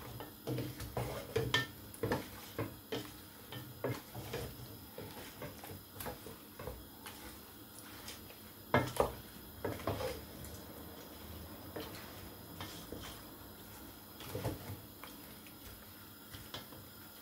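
Wooden spoon scraping and knocking against a pot as chunks of raw seasoned chicken are stirred round with no water in it. The scrapes and knocks come irregularly, with a few louder knocks about halfway through.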